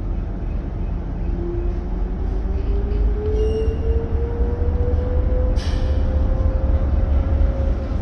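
Deep, steady rumble of the Freshwater-class ferry's Daihatsu diesel engines while it lies alongside the wharf, with one tone that slowly rises in pitch and falls again near the end. A single sharp click sounds about five and a half seconds in.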